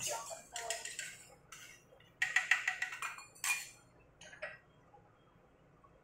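Metal spoon scraping and clinking against a small stainless-steel bowl as cornstarch slurry is scraped out into a cooking pot. A quick run of clinks comes about two seconds in and another short one a second later, then a couple of faint taps.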